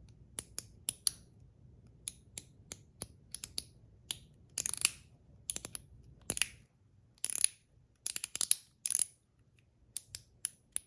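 Zirconium One Pal fidget slider being worked by hand: sharp metallic clicks, single and in quick runs, some with a little high ringing "ding" after, and a few longer rasping slides in the middle.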